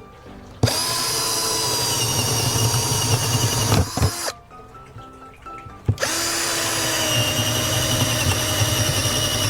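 Power drill driving screws in two runs of about three seconds each, the motor running at a steady whine, with a short pause between them.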